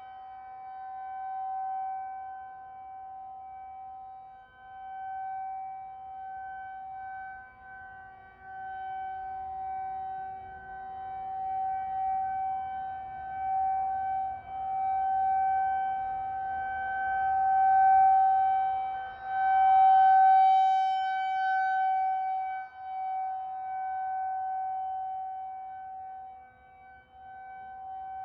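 Federal Signal 2001 rotating tornado siren sounding a steady single-pitch wail with overtones, swelling and fading in loudness as it sweeps around. The uploader guesses this unscheduled activation was an accidental test.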